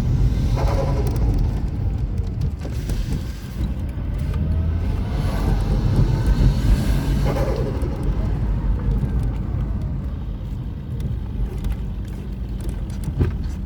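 Turbocharged Toyota 1JZ inline-six in a Mazda RX-8 rumbling at idle and revved twice, with turbo flutter as the throttle closes after each rev.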